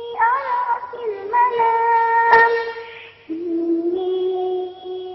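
A young girl's high voice chanting Quran recitation (tajwid) in long, held, ornamented notes, with a short break about three seconds in. A single sharp click about two seconds in.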